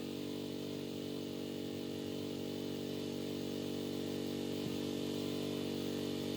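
Gas pressure washer engine running steadily.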